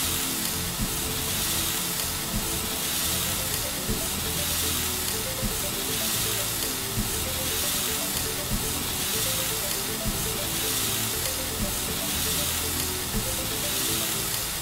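Marinated chicken thighs sizzling on a hot grill grate, a steady hiss, with background music of held notes underneath.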